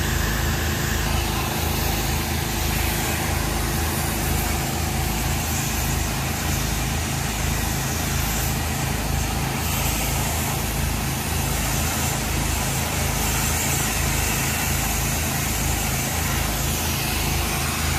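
Engine of a power-washing rig running steadily, with an even, regular low throb.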